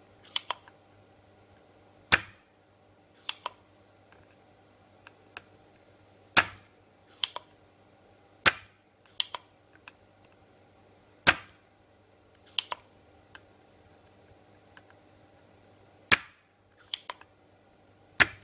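Spring-loaded vacuum desoldering pump (solder sucker) firing again and again: sharp snaps as the release button lets the plunger spring back, with quieter clicks of the plunger being pushed down and latched between shots. Each snap sucks molten solder out of a pad hole, clearing it.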